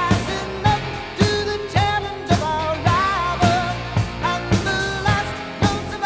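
Pop song with a sung vocal over a steady drum beat, about two beats a second.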